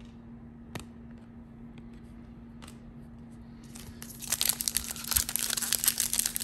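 Trading card pack wrapper being handled, with a couple of light clicks, then torn open and crinkled from about four seconds in.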